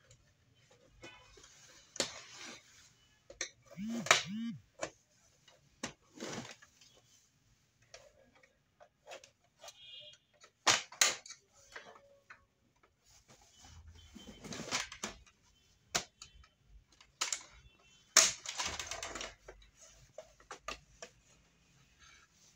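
Plastic casing of an HP LaserJet Pro M404dn laser printer being worked loose: irregular clicks, snaps and knocks as the side cover is unclipped, with two longer scraping slides as the panel is pulled off.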